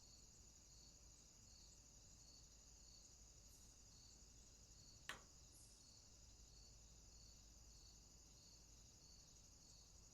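Faint insect chirping: soft pulses repeating evenly, a little under two a second, over a steady high hum. A single sharp click about five seconds in.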